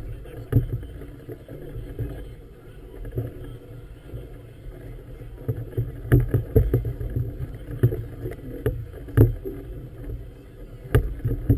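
Choppy harbour water slapping against the hull of a moored floating vessel: a steady low rumble broken by irregular sharp thumps and knocks.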